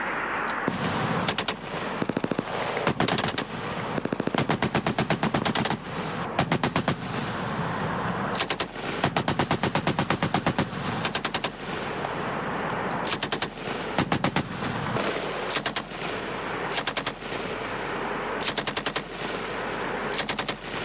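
Machine gun fired in about a dozen short bursts of a few rounds each, with brief pauses between them; the gunners let off the trigger rather than holding it down.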